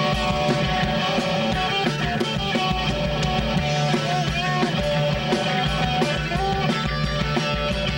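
A live rock band playing electric guitars over a drum kit, with steady cymbal and drum hits.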